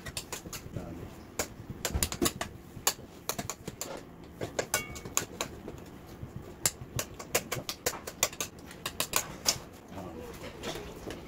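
Metal spoon clicking and scraping against a metal springform cake tin as crushed biscuit crumbs are pressed down into a cheesecake base. The clicks come fast and irregular, then die away near the end.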